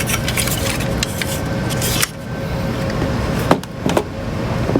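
Scattered clicks and knocks of a screwdriver and metal parts being handled while a screw is taken out of an oscilloscope's I/O board, with a steady hum underneath.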